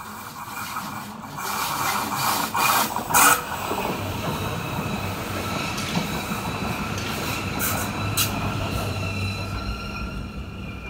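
Stadler ABe 4/12 low-floor electric multiple unit of the metre-gauge Wynental and Suhrental railway passing close by on a curve. Its wheels give a steady high squeal, with sharp clicks from the wheels on the rails; the loudest click comes about three seconds in.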